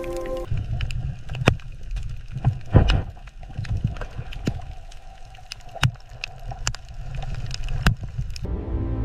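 Underwater ambience: a low rumble of moving water with scattered sharp clicks and crackles. Music cuts off about half a second in and comes back near the end.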